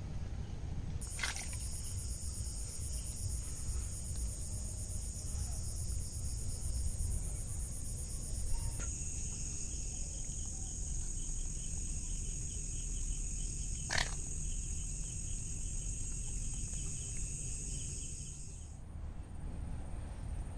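Insects trilling steadily at a high pitch, with a second, lower trill joining about nine seconds in and both stopping shortly before the end. Under them is a low rumble, and there are two sharp clicks, about a second in and about fourteen seconds in.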